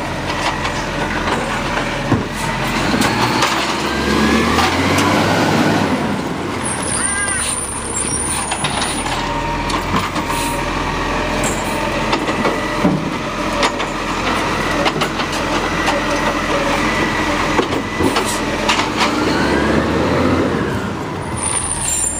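Automated side-loader garbage truck running, its engine revving and the hydraulic lifting arm whining up and down as it raises, tips and lowers a wheelie bin, with scattered clunks and short air hisses.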